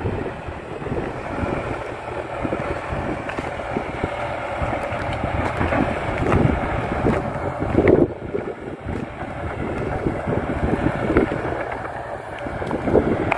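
Kato HD512E crawler excavator's diesel engine running steadily as it works, heard from a distance, with wind gusting on the microphone.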